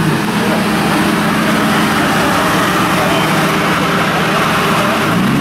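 Lamborghini Gallardo's V10 engine running steadily at low revs as the car creeps into a parking space.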